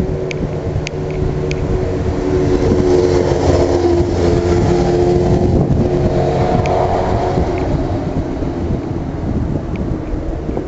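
Street traffic: a motor vehicle engine running steadily close by, with a low rumble and a held drone, loudest midway.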